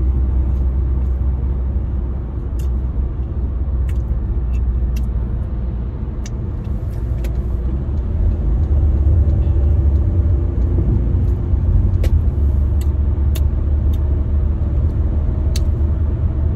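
Steady low rumble of a car's engine and road noise, heard from inside the cabin while driving, growing a little louder about halfway through. A few faint sharp clicks sound now and then.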